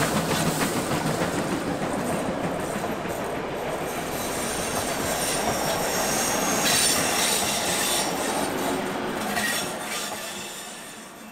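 A train running on the rails, with a high-pitched wheel squeal in the middle, fading out near the end.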